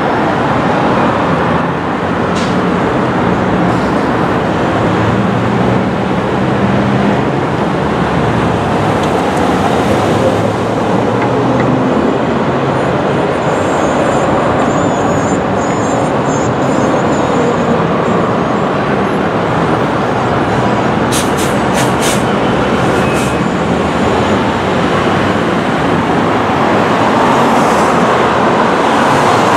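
Steady city street traffic: cars and a truck running and passing through an intersection, with engine hum underneath.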